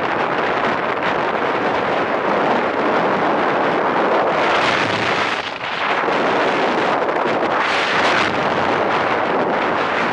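Wind rushing over the microphone of a land yacht under sail, mixed with its wheels rolling on the hard, cracked dry lake bed. The steady rushing noise dips briefly about five and a half seconds in.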